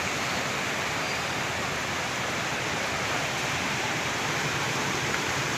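Floodwater rushing along a street: a steady rush of fast-flowing, churning water.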